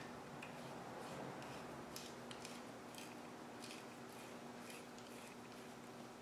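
Faint, scattered light clicks and small metallic taps of a distributor drive gear and screwdriver being handled and lined up by hand, over a steady low hum.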